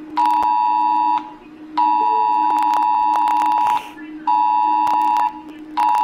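Romania's phone emergency alert tone: loud two-tone beeps in a repeating pattern of about one second, two seconds and one second with short gaps between, over a steady low hum.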